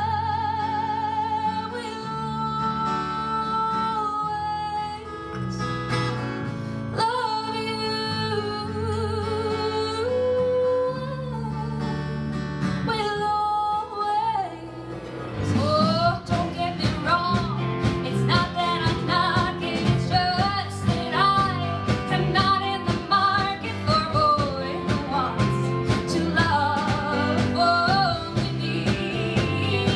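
A woman singing to acoustic guitar accompaniment. For the first half she holds long notes with vibrato over gentle guitar. About halfway through the music changes abruptly to a busier passage, with rapidly strummed acoustic guitar under shorter sung phrases that bend in pitch.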